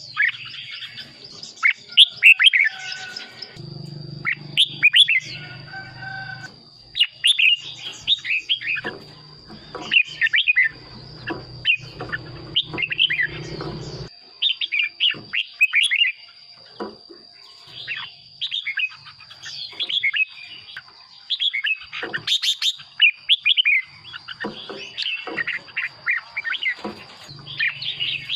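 Red-whiskered bulbul singing: short, bright whistled phrases repeated one after another with brief gaps. A steady high whine runs underneath, and a low hum sounds from about four seconds in until about halfway.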